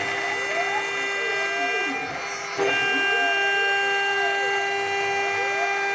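CNC router milling D16 duralumin: the spindle whines steadily at 24,000 rpm, while the stepper motors sweep their whine up and down about once a second as the axes trace circular paths. About halfway through the sound dips briefly, then gets louder.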